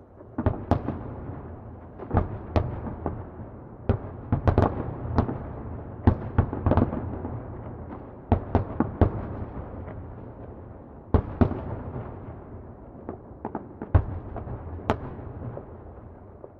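Distant fireworks exploding: an irregular string of sharp bangs, at times several close together, with a low rumble from the echoes between them.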